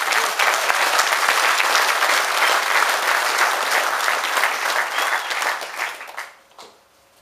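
Audience applauding loudly, many hands clapping at once, dying away about six seconds in.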